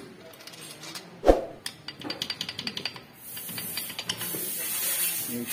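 Metal parts of a Maruti Gypsy engine being handled around the crankshaft and its bearing caps during teardown: one sharp metal knock about a second in, then a quick run of clicks, then a steady high hiss for the last couple of seconds.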